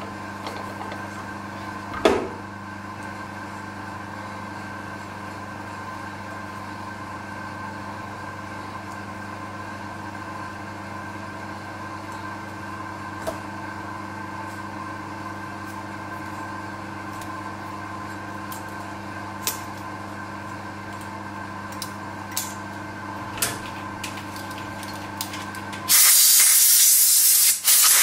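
Milling machine running steadily with a drill bit in its chuck, a hum with several fixed tones broken by a few sharp clicks. Near the end a loud burst of compressed air hisses for about two seconds, blowing chips off the drilled part.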